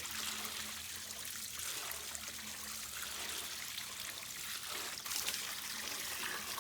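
Water trickling and dripping steadily off a freshly rinsed window air conditioner, an even hiss with a faint low hum beneath it.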